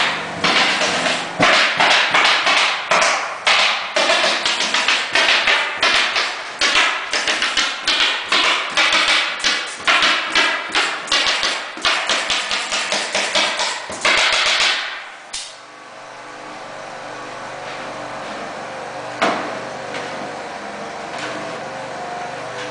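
Pneumatic stapler driving staples through wire lath into a subfloor: a fast series of sharp shots, about two a second, over a steady machine noise. The stapling stops about fifteen seconds in, leaving a steady hum with one more shot a few seconds later.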